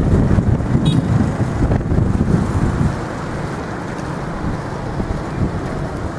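Wind buffeting the microphone over a steady rumble of street traffic, easing off about three seconds in.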